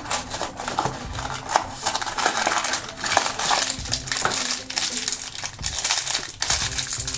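Crinkling and rustling of a shiny black plastic blind-box bag being handled and pinched open, after a small cardboard box is opened near the start.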